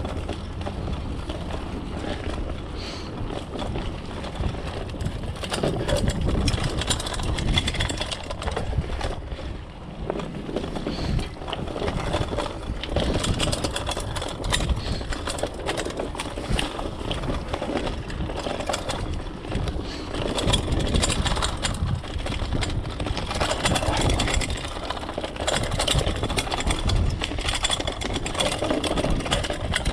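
Mountain bike rolling down a dirt forest trail: tyres running over dirt and leaves and the bike rattling and clicking over bumps, with a steady low rumble underneath. It gets louder about six seconds in.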